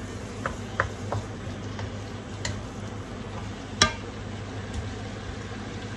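Ground meat sizzling in a nonstick wok while a wooden slotted spatula stirs it, with a few light knocks of the spatula against the pan, the sharpest one a little after halfway. A steady low hum runs underneath.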